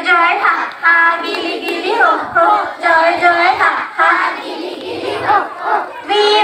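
A song sung by children's voices together with a woman's voice, the melody gliding up and down without pause.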